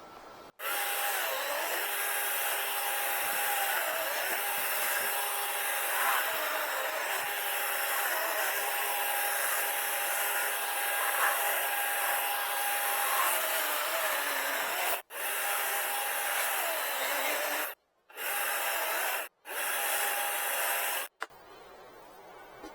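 DeWalt electric chainsaw cutting through a wood blank, running steadily with a motor whine that dips and rises a little under load. It cuts off sharply about 15 s in and twice more around 18 to 19 s, and stops near the end.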